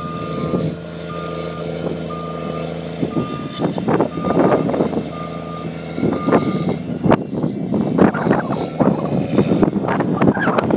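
Snow groomer's engine running with its reverse alarm beeping in a steady series, roughly one beep every second, stopping about six and a half seconds in. Irregular clanks and rattles from the moving machine grow louder in the second half and become the loudest sound.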